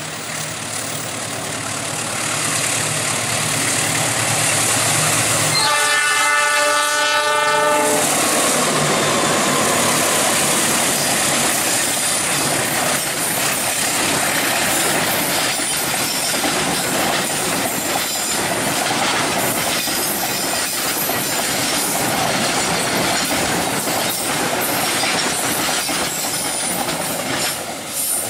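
Diesel locomotive of a coal train approaching with its engine running, then sounding its horn in one blast of about two seconds, about six seconds in. The loaded coal wagons then pass close by in a continuous rumble of wheels with rapid clickety-clack over the rail joints.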